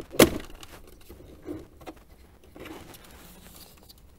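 Plastic wiring connector unclipping with one sharp click, then a few lighter clicks and a short rustle as the plastic dash trim panel and its wiring are handled.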